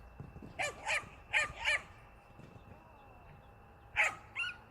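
A puppy barking in short, high yaps that come in pairs: two quick pairs in the first two seconds, then another pair about four seconds in.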